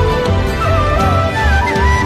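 Background music: a melody with sliding, ornamented notes over a steady low beat.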